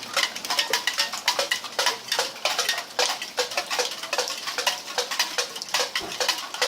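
Raindrops dripping onto a beer can: an irregular run of sharp metallic ticks, several a second, each with a short ring.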